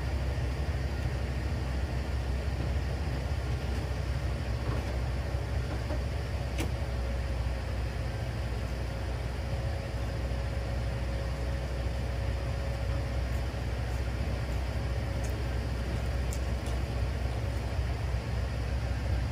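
School bus engine idling steadily, a low even rumble.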